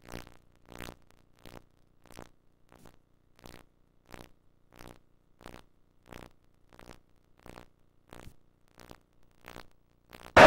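Volleyballs being hit and bouncing on the hard gym floor: a steady run of short thuds, about one every two-thirds of a second, with fainter knocks between.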